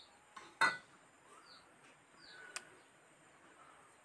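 Handling of a plastic mixing bowl and aluminium cake tins while batter is poured: a single knock about half a second in and a sharp click a couple of seconds later. A few faint, short high bird chirps come and go.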